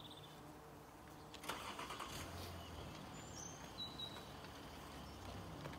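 Quiet outdoor ambience with a distant vehicle engine running low and steady from about two seconds in, a short rustle about a second and a half in, and a couple of brief bird chirps.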